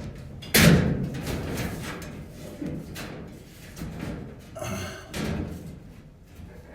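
Clunks and knocks of a clothes dryer's sheet-metal parts being handled and fitted back together, the loudest about half a second in, with a short rattle near the end.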